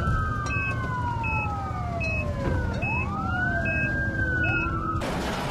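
Fire engine sirens wailing: two overlapping sirens, each sweeping quickly up in pitch and then sliding slowly down, with short high beeps repeating a little more than once a second and a low engine rumble beneath. The sirens cut off about five seconds in, giving way to a steady hiss.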